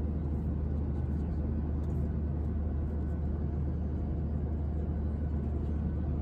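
Cabin noise of a Boeing 737-800 with CFM56-7B engines: a steady low drone of engines and airflow, unchanging in level.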